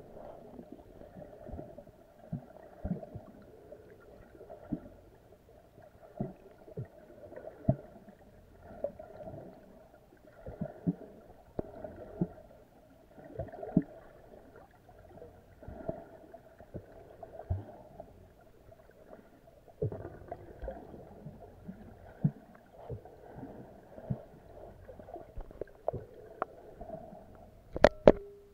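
Muffled underwater sound of snorkeling: a dull, steady wash of water with irregular soft knocks and gurgles about once a second from the swimmer's movement, and a sharper, louder knock near the end.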